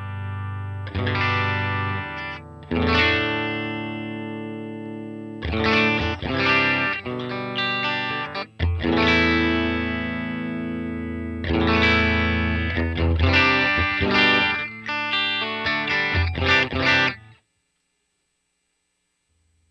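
Electric guitar played through the STL AmpHub's Vox AC30 amp simulation: a series of chords and notes struck and left to ring. The playing stops suddenly near the end.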